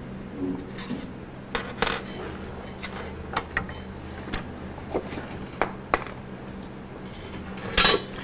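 Metal parts and hand tools clinking and clicking while a DeWalt DW788 scroll saw is taken apart by hand: irregular sharp clicks, about nine in all.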